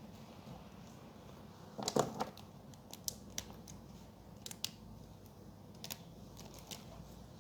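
Brush pens being handled and slotted back into their plastic packaging. A short cluster of rustling clicks comes about two seconds in, followed by scattered light clicks.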